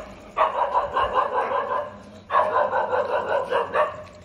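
Stray dogs barking in two long, rapid volleys, each about a second and a half, with a short break just after two seconds in.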